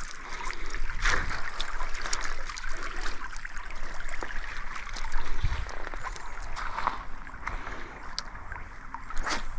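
Shallow creek flowing over gravel, a steady trickling rush, with many scattered clicks and knocks from handling on the stones close to the microphone and a low thump near the middle.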